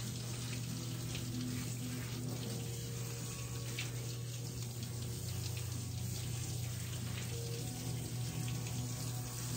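Water spraying steadily from a handheld shower sprayer, rinsing a toy poodle puppy's coat in a stainless steel grooming tub, over a steady low hum.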